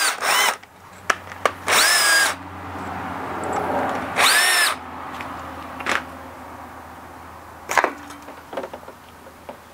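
A cordless power tool spinning bolts out of an engine's side in short bursts, its motor whine rising as it spins up and then holding. There are three main bursts: one at the start, one about two seconds in and one about four and a half seconds in. A few light clicks follow near the end.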